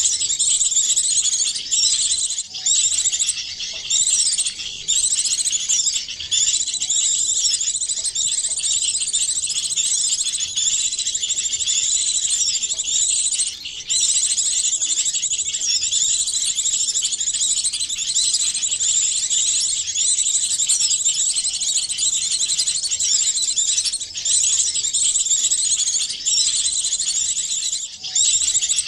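A bird-lure recording of several small songbirds calling at once, layered into one continuous mix. It is a dense, high-pitched chatter of rapid chirps, trills and short whistled glides, with only brief dips every few seconds.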